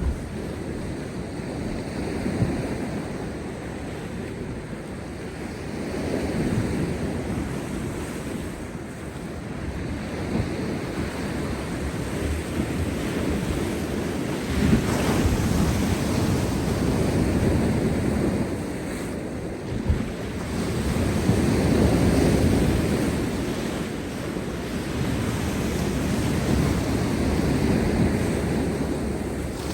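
Heavy post-storm surf breaking on rocks, a continuous wash that swells and ebbs every few seconds, with stronger crashes about halfway through and again around twenty seconds in. Wind buffets the microphone throughout.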